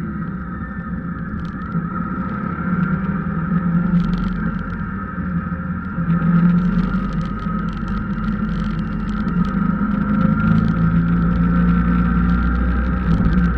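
A vehicle driving: steady engine and road noise with a low hum and a thin steady whine above it, getting louder about six seconds in.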